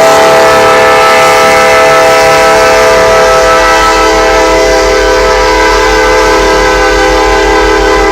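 CSX locomotive air horn blowing one long, unbroken blast: a loud, steady chord of several notes. The train's low rumble sits underneath it.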